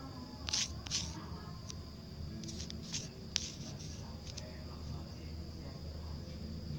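Steady high-pitched insect chirring in the background, typical of crickets, over a low hum, with a few short sharp clicks near the start and about three seconds in.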